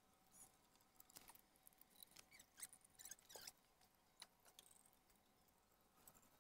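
Near silence, with faint scattered clicks and small squeaks of a blue plastic hose coupling being twisted onto a black hose by hand.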